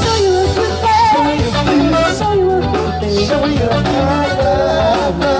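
Live band music: drums, bass guitar and keys playing an upbeat groove, with a wavering melody line over the top.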